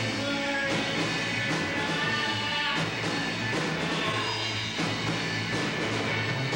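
Live rock band playing: electric guitars over a steady bass line and drum kit, with held guitar notes on top.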